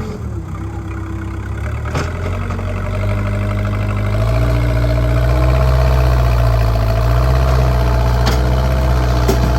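JCB backhoe loader's diesel engine running steadily, getting louder about four seconds in, with a few faint clicks over it.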